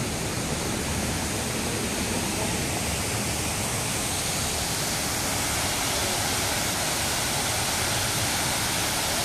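Water pouring over a curved cascade weir into a pool, a steady rushing that grows a little louder over the first couple of seconds.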